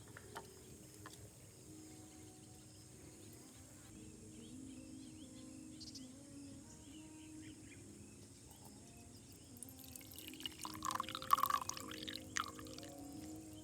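Liquid being poured, heard as an irregular splashing and trickling for about two and a half seconds near the end, after a quiet stretch.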